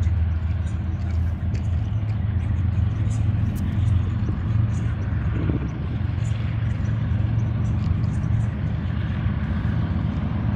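BNSF diesel-electric freight locomotives working under throttle as a Q train pulls away: a steady, low engine drone.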